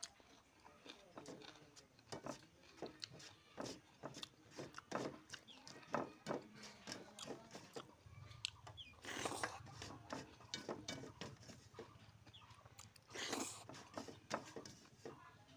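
Close-up eating sounds: chewing, lip smacks and short wet clicks, with fingers mixing and scooping food on a steel plate. Two louder, noisier bursts come about nine and thirteen seconds in.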